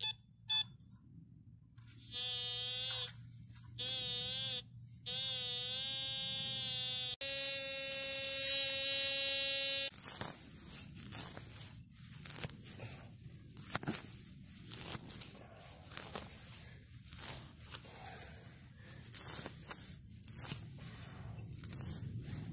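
Metal detector signalling a target: a few short chirps, then three wavering tones as the coil passes over it, then a steady tone for about three seconds. After that a hand digger cuts and scrapes through grass turf and soil in a run of short scrapes and knocks.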